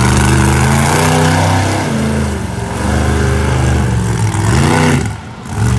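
School-bus-bodied monster truck's engine revving hard, its pitch rising and falling as the throttle is worked. It holds high for about two seconds, dips, climbs again, then gives two short blips near the end.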